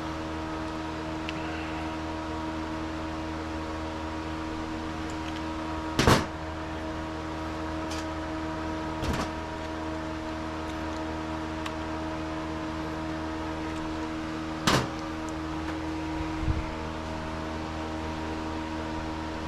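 A steady mechanical hum, like a shop fan or similar running appliance, with a few sharp clicks and knocks over it. The loudest knocks come about six seconds in and near fifteen seconds, with smaller ones around nine seconds and near the end.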